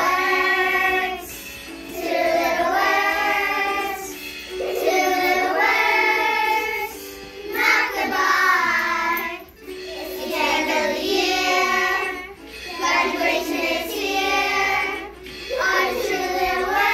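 A class of first-grade children singing a song together in unison, in phrases of a few seconds broken by short pauses for breath.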